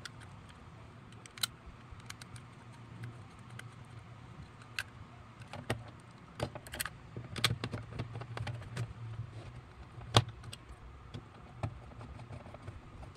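Irregular small clicks and knocks of a plastic junction box being handled and set back into a turntable chassis, with a screwdriver tapping against it, over a faint steady low hum.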